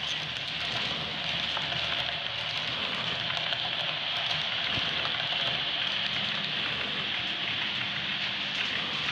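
Model train of double-deck coaches rolling past on the layout track: a steady hissing rattle of wheels on the rails, a little louder in the middle as the coaches go by.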